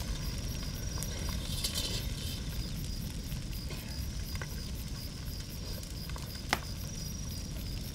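Campfire burning with a low rumble and faint crackles, over a steady high chirping of night insects. A single sharp crack comes about six and a half seconds in.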